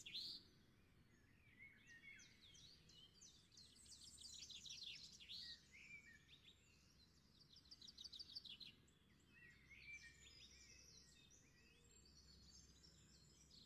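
Faint birdsong in the background: several birds chirping, with quick rattling trills of rapidly repeated notes around four to five seconds in and again near eight seconds, among shorter sliding calls.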